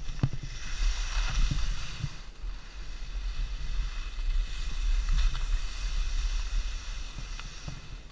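Skis hissing and scraping over snow on a downhill run, the hiss swelling and fading twice as the skier turns, over a constant low rumble of wind on the microphone.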